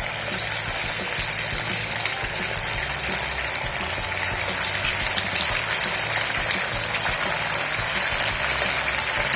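Sabudana vadas deep-frying in hot oil in a kadai: a steady, dense sizzle that swells slightly as more patties are slid into the oil.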